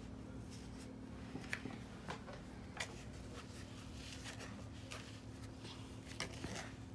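A spoon scraping and clicking against a mixing bowl while butter, sugar and brown sugar are stirred together: faint, irregular scrapes and taps.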